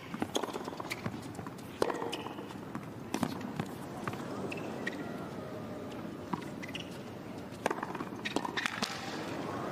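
Tennis arena crowd murmuring between points, with a few sharp knocks spaced a second or more apart.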